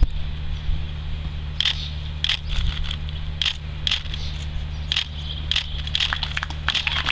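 About ten scattered sharp clicks at irregular intervals over a steady low hum, thickening into a dense patter right at the end.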